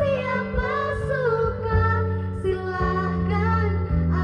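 A song with a female voice singing a gliding, held melody over a steady instrumental backing.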